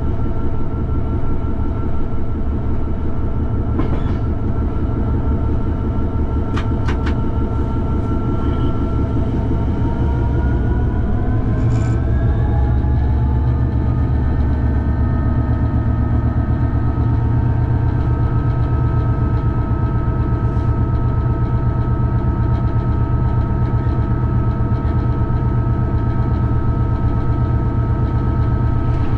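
A Class 66 diesel locomotive's 12-cylinder two-stroke engine running under power, heard from the cab, with a steady low drone. About ten seconds in, the tones in the drone rise in pitch over a few seconds and then hold. A few sharp clicks come from the track.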